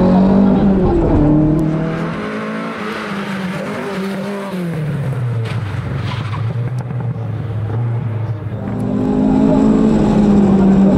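Opel Kadett GTE Group 2 rally car's engine running hard, heard from inside the car. For several seconds in the middle the car is heard from the roadside, more faintly, its engine note dropping about halfway through. Near the end the loud in-car engine sound returns.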